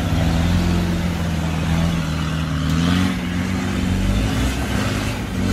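Land Rover Discovery's engine pulling under load as the 4x4 climbs a muddy slope, with the revs rising a little about halfway through.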